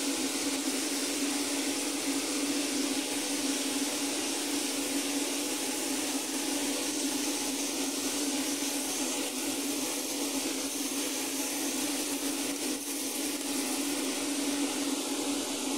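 Chicken pieces sizzling and bubbling in their juices on a hot grill tray, a steady hiss, over a constant motor hum.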